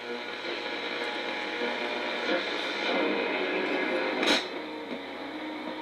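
Late-1970s Yorx clock radio's speaker playing an AM broadcast: faint talk and tones under steady static hiss, with one sharp crackle about four seconds in.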